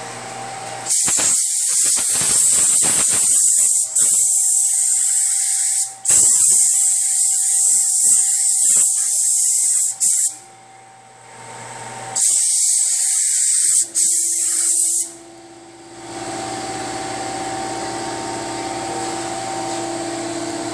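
Paint spray gun hissing as it lays epoxy primer over bare metal. One long pass runs about nine seconds with two brief trigger releases, and a shorter pass of about three seconds follows after a pause. A steady background hum continues between passes and after the spraying stops.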